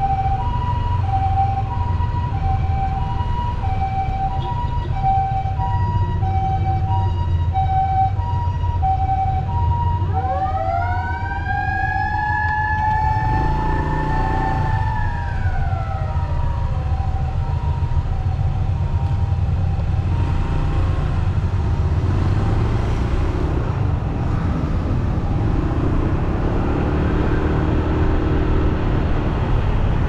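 Japanese ambulance's electronic two-tone siren alternating steadily between two pitches; about ten seconds in it stops and a mechanical motor siren winds up in a rising howl, holds a steady tone for about four seconds, then winds down in a falling glide. The motor siren is the extra warning used when crossing a red-light intersection. Road and traffic rumble underneath throughout.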